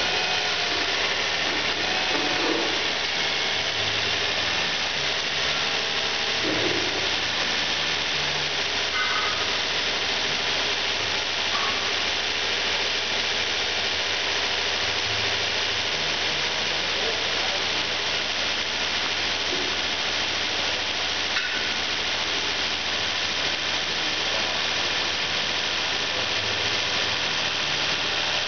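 The 3.5-litre V6 of a 2002 Nissan Altima idling steadily while running on test.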